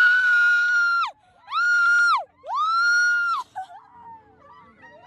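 Thrill-ride screaming: three long, high-pitched screams of a few riders on an amusement-park ride, each held about a second, then it drops to faint voices.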